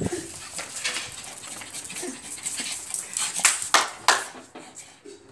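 Pug dog making short sounds while at play, with three sharp knocks between about three and a half and four seconds in.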